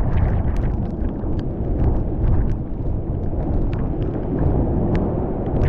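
Hurricane Zeta's wind buffeting the GoPro Max's microphone: a deep, steady rumble that swells and eases in gusts, with scattered sharp ticks of water striking the camera.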